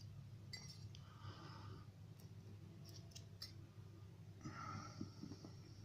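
Faint, scattered small clicks of lock parts being handled during disassembly of a pin-tumbler cylinder, with soft breathing and a low background hum.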